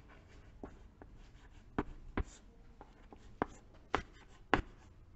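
Chalk writing on a chalkboard: faint scratching strokes punctuated by several sharp taps of the chalk against the board.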